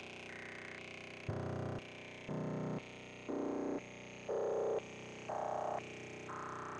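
Electronic synthesizer tones: a slow sequence of short, steady beeping notes, about one a second, each jumping to a different pitch, over a faint steady electronic buzz.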